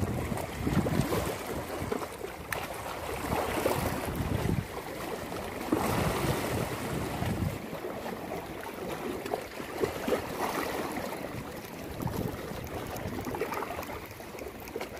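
Sea water lapping and splashing at a rocky shoreline, with wind buffeting the microphone. The wind rumble eases off about halfway through.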